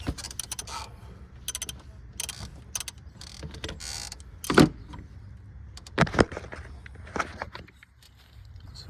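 Hands working on engine parts: scattered clicks and rattles of parts and tools being handled, with a sharp knock about four and a half seconds in and two more about six seconds in.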